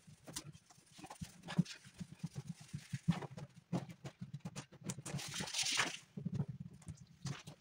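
Hands pressing and rubbing a vinyl decal's transfer tape onto a snowmobile hood: irregular soft taps and knocks, with a longer rubbing swish about five seconds in.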